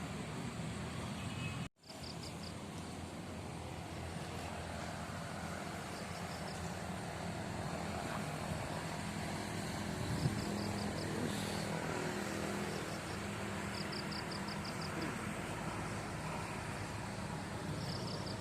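Steady low engine-like drone under outdoor noise, with short trains of rapid high chirps recurring every few seconds.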